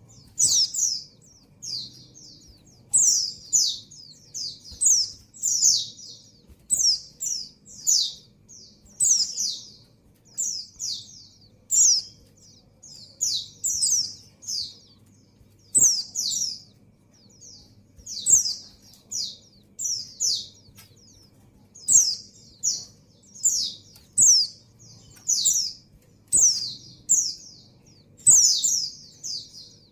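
Female white-eye (pleci) calling with short, high chirps that fall in pitch, repeated about once a second and often two or three together. It is the call of a female in breeding condition calling for a male.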